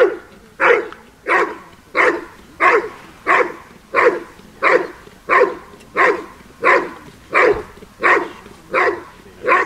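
A dog barking steadily at a protection-sport helper: the guarding bark of a Schutzdienst trial, a strong, even bark about one and a half times a second without a break.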